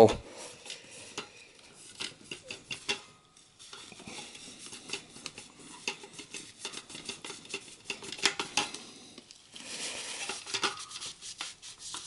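A rag wiping old thermal paste off the metal base of a CPU heatsink: irregular rubbing and rustling strokes with small clicks.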